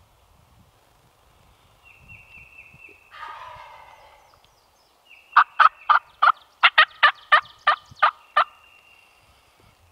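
A wild turkey gobbles once, a fainter rattling call about three seconds in. Then a series of about a dozen sharp, loud turkey yelps follows, evenly spaced at roughly four a second.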